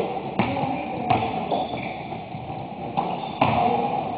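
A basketball bouncing on a hardwood gym floor: several irregular thuds that echo in the large hall, over a faint murmur of the room.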